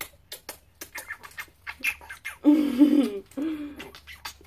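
Repeated light kiss smacks on a baby's cheek, with a short wavering cooing voice about two and a half seconds in and a briefer one just after.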